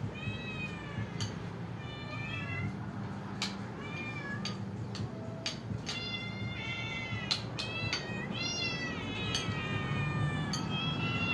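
Several cats and kittens meowing over and over in short, high-pitched calls that overlap and come thicker and louder in the second half: hungry meowing while waiting to be fed. A few sharp clicks come in between.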